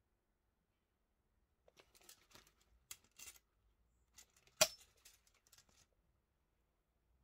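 A nylon knife sheath and a steel tape measure being handled and turned: scattered soft rustles and small clicks starting about two seconds in, with one sharp click a little after halfway.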